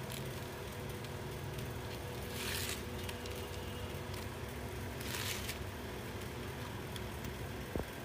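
Steady low background hum, with two brief hissing scrapes about two and a half and five seconds in.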